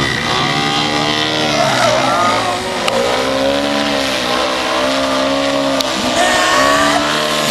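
Propeller airplane engine running at high revs, its pitch rising and falling in smooth sweeps as the plane flies past and manoeuvres.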